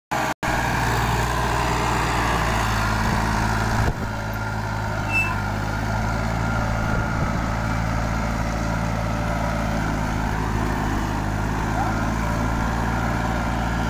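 Ford 3600 tractor's three-cylinder engine running steadily under load as it pulls a cultivator through dry soil.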